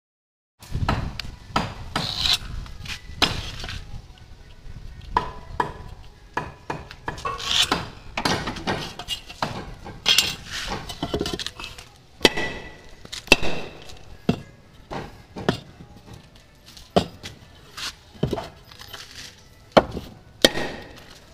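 A hammer striking and scraping a lightweight aerated concrete (hebel) block, to score it for cutting. The knocks and scrapes come irregularly, about one every second or so.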